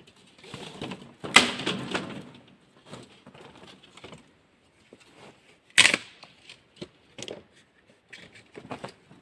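Irregular knocks and clatter of hard objects being handled and set down, with a louder rattling clatter about a second in and a single sharp knock near the six-second mark.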